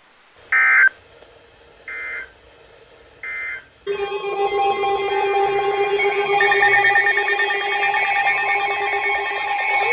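NOAA Weather Radio end-of-message signal: three short bursts of screechy digital SAME data, each under half a second and about 1.4 seconds apart. About four seconds in, a loud electronic alert sound of several stacked tones starts and keeps going.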